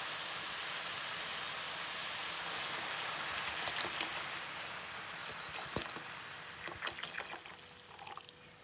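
Milk being poured into a hot pan of grated carrots, hissing steadily, with the hiss dying away over the second half. A few light clicks, like a spoon against the pan, come near the end.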